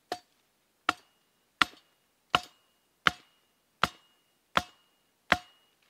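Eight sharp blows, about one every three-quarters of a second, driving a wooden stake into the ground to anchor a trap; some blows leave a faint ringing.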